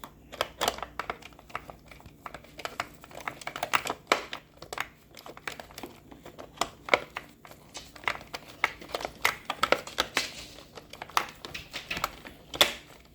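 Hard plastic parts of a Roomba robot vacuum being handled and fitted back into place: many irregular sharp clicks, taps and rattles.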